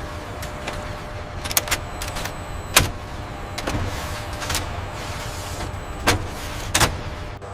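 Workshop machinery running with a steady mechanical whir, broken by several sharp metallic clanks, the loudest about three seconds in.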